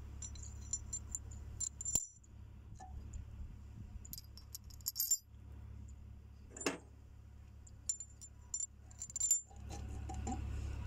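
Scattered light metallic clinks and ticks of a steel ring being slid over a splined shaft and seated inside a cast axle housing, handled by hand, over a steady low hum.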